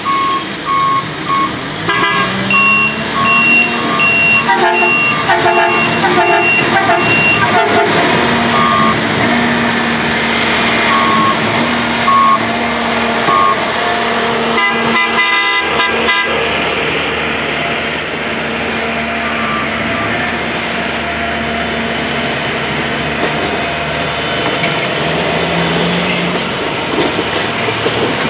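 Harsco maintenance-of-way track machines rolling past with their diesel engines running, a steady hum under it all. Through the first half their warning beepers and horns sound many short, repeated beeps at several pitches. About fifteen seconds in there is a brief run of rapid clicking.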